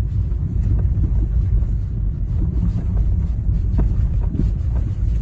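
Steady low rumble of a car's tyres and engine, heard from inside the moving car.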